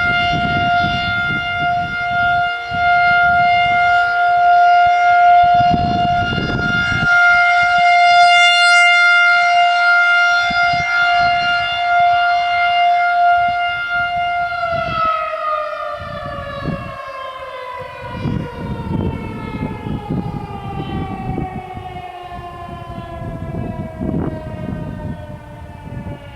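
Federal Signal 2001-SRNB mechanical warning siren sounding a steady alert tone, then winding down about halfway through, its pitch falling slowly as the rotor spins down.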